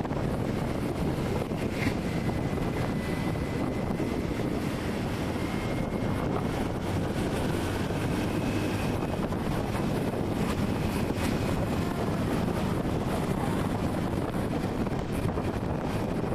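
Steady wind rush on the microphone over a low road and traffic noise, recorded while moving along with traffic.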